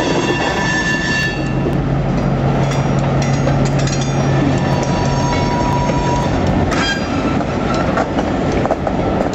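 EMD GP7u and GP9 diesel locomotives with 567 engines running past slowly, a steady engine drone under high, thin steel wheel squeal that comes and goes.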